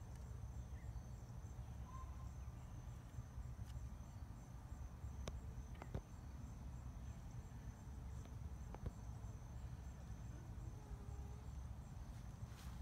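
Insects trilling steadily in the background, a high-pitched evenly pulsed drone, with a low rumble and a few faint ticks.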